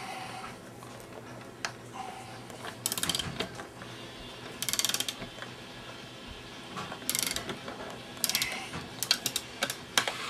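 Hand ratchet wrench clicking in four short bursts of rapid pawl clicks, then a few sharp single metal clicks near the end.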